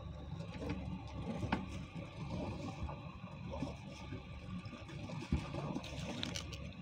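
Water sloshing around a small boat's hull over the low rumble of its idling engine, with a couple of sharp knocks.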